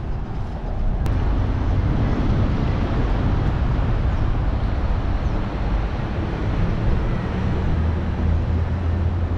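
Steady low engine rumble with a hum that grows stronger near the end.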